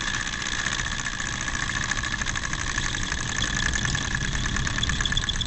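Small ethanol-fired Stirling engine running with a fast, even mechanical clatter as it coasts down after its flame has been blown out.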